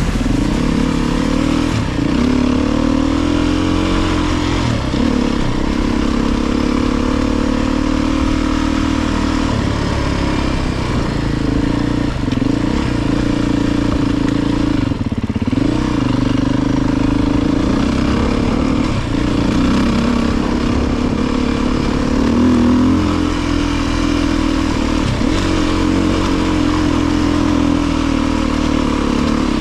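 Beta 350 RR four-stroke single-cylinder dirt bike engine running under way, its pitch rising and falling every few seconds with throttle and gear changes.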